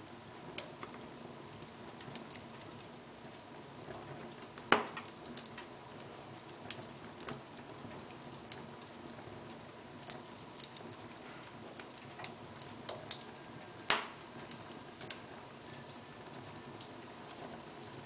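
Wood fire burning in an open fireplace, crackling with irregular sharp pops over a low steady hiss of flame. Two pops stand out as much louder than the rest: one a little before the five-second mark and one about fourteen seconds in.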